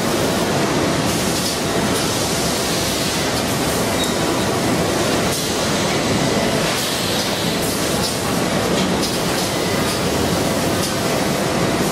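Automatic bag-palletizing line running: a steady mechanical noise from the robot and conveyors, with a few faint clicks.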